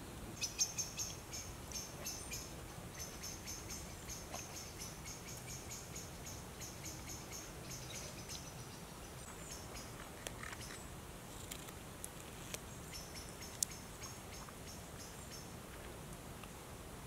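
Woodland wildlife chirping: a long run of high, quick chirps, about three a second. It stops about halfway through and starts again for a few seconds, with a couple of sharp clicks in between.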